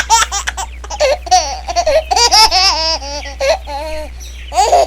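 High-pitched laughter: a run of quick giggles, then longer wavering laughs that slide down in pitch near the end.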